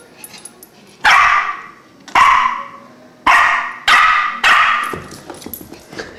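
Shih Tzu puppy barking: five sharp, high barks about a second apart, the last three coming faster.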